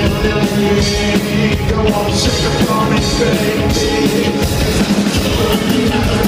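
Live rock band playing loud, with electric guitar, bass and drums keeping a steady beat, in a stretch with no sung words.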